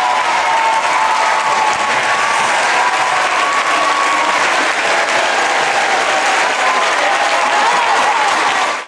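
A large crowd applauding loudly in a gymnasium, with shouting voices over the clapping. The sound cuts off abruptly at the very end.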